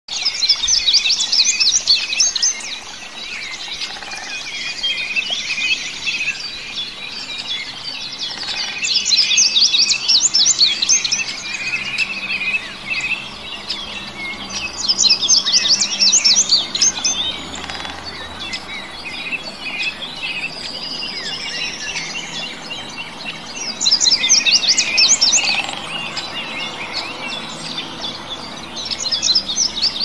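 Songbirds singing: loud bursts of rapid, high, chattering notes recur every six to eight seconds, with softer chirps between them and one long rising whistle about two-thirds of the way through.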